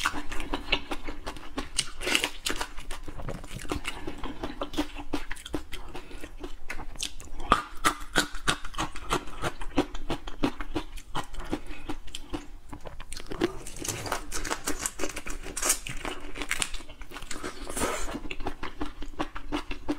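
Close-miked eating sounds: a large marinated prawn being pulled apart and peeled by hand, and its meat bitten and chewed. These come as a dense, irregular run of small crackles and crunches.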